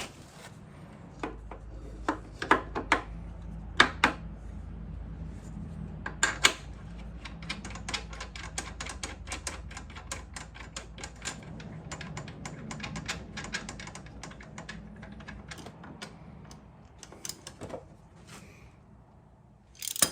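Brake caliper mounting bolts being tightened with a socket ratchet: a few sharp metal knocks, then a long run of rapid ratchet clicks, over a low steady hum.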